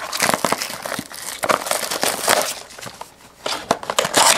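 Plastic wrapping on a box of trading cards being torn and crinkled as the box is opened, a dense run of crackles that eases off briefly and picks up loudly again near the end.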